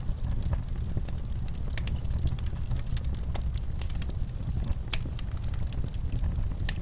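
Wood fire crackling, with irregular sharp pops and snaps over a steady low rumble of burning logs.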